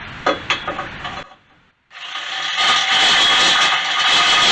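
A few light knocks, then from about two seconds in a power drill running loud and steady, a large bit boring out a hole in metal.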